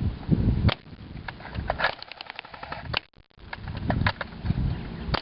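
Airsoft guns firing at a plasma TV: a string of sharp, irregularly spaced clicks and snaps from the shots and from BBs striking the set, over a low rumbling.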